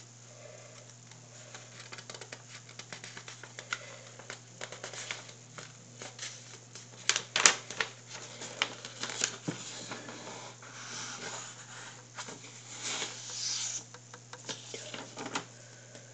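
A sheet of paper being folded and creased by hand: scattered rustles and crisp taps, the sharpest about seven seconds in, over a steady low hum.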